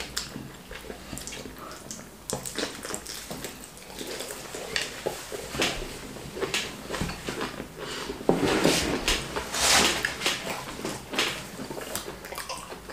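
Eating sounds from wheat fufu and ogbono soup being eaten: wet squishing and mouth smacks, with clinks of dishes. The sounds are loudest for a couple of seconds near two-thirds of the way through.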